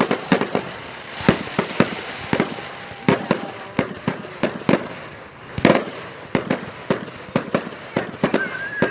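Fireworks going off: an irregular run of sharp bangs and pops, two or three a second, some loud and some fainter.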